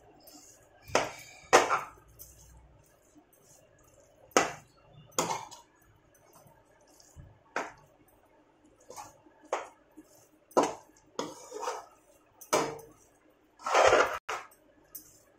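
Metal slotted spatula scraping and knocking against a stainless-steel kadhai while stirring a crumbly grated-coconut mixture: irregular clinks and scrapes about every second, the loudest cluster near the end.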